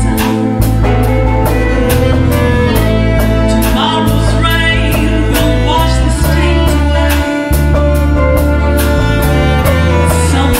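Live band playing a song: a woman singing lead over violin, bass guitar and drums keeping a steady beat.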